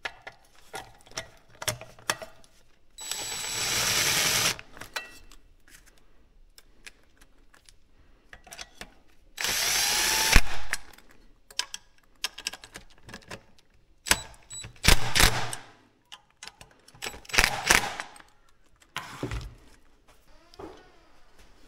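Handheld power tool running in short bursts: two runs of about a second and a half each, then several shorter bursts, with clicks and parts being handled in between.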